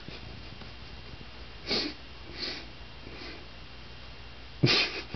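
A baby with its toes in its mouth making four short breathy sniffs and puffs, the last and loudest near the end with a brief low grunt.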